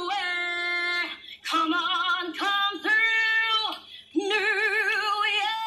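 A woman singing solo with no accompaniment: three short phrases of held notes with brief breaths between, then a long held note with wide vibrato.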